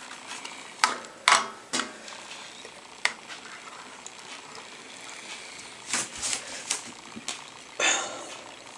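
Plastic fork clicking and scraping against a plastic cup while tubifex worms are chopped into small pieces: a scattering of sharp clicks, a quick run of them about six seconds in, and a longer scrape near the end.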